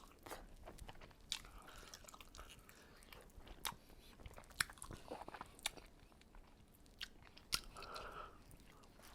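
Close-miked eating sounds from a person chewing food: soft, wet chewing with sharp mouth smacks and clicks about once a second.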